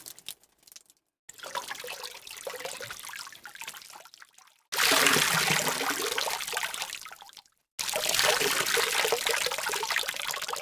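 Water pouring and trickling, heard as several separate short clips, each starting and stopping abruptly with brief silent gaps between them; the loudest begins about halfway through.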